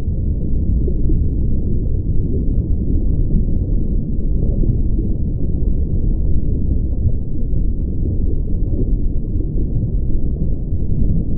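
Steady, muffled low rumble that does not change, with no separate knocks or tones in it.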